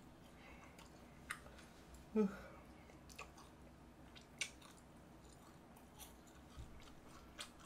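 Quiet room with a few faint, short clicks spread across several seconds and one brief hummed vocal sound about two seconds in.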